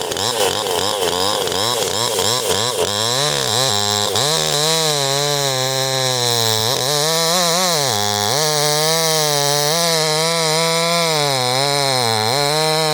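Brand-new Proyama chainsaw, right out of the box, running hard while cutting into wood. The engine note wavers and dips several times, bogging under the cut and picking back up.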